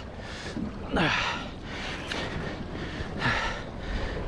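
A man breathing hard with grunting groans, two long heavy exhalations about two seconds apart, each falling in pitch. This is the strain of fighting a heavy kingfish on rod and reel.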